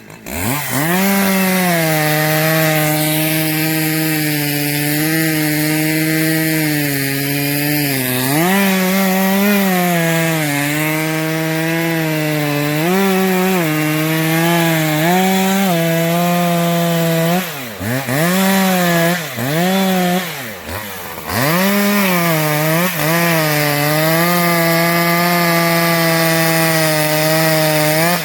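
Two-stroke chainsaw running at high revs while cutting wood, its pitch sagging and recovering under load. About two-thirds of the way through it drops toward idle and revs back up several times.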